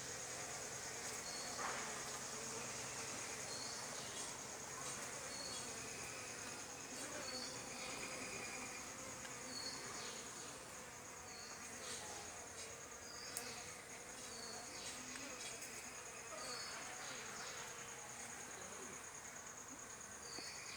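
Honeybees buzzing around their hives, with a steady high-pitched insect trill over it and short chirps every second or two.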